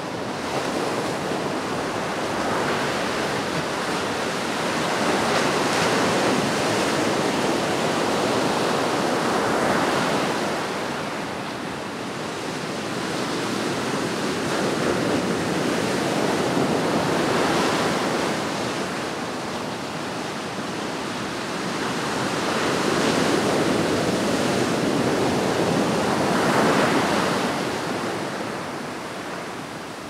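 Ocean surf: waves breaking among rocks and washing up a sandy beach, a steady rushing that swells and ebbs in long surges every several seconds.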